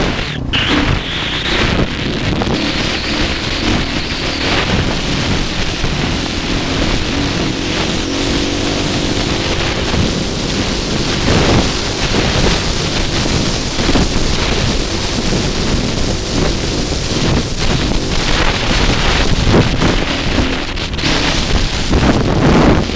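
KTM dirt bike engine running under way along a sandy track, with heavy wind noise on the microphone.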